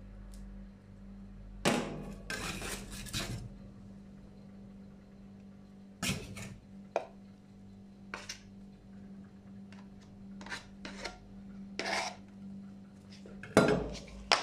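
Spatulas scraping and tapping on the stainless-steel plate of a rolled-ice-cream cold pan: a run of scrapes early on, then scattered sharp taps, the loudest near the end, over a steady low hum.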